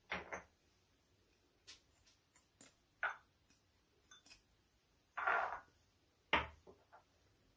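Spoon scraping minced garlic off a small porcelain dish into a ceramic bowl: a series of short scrapes and light china clinks and taps, with a longer scrape about five seconds in and a sharp clink just after.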